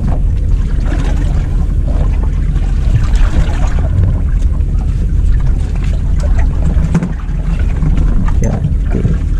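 A boat's engine running steadily with a low hum, under wind and water noise, with a few faint knocks.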